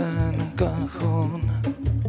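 Live band music: a male voice singing over electric guitars and cajón, with a steady low bass pulse about twice a second.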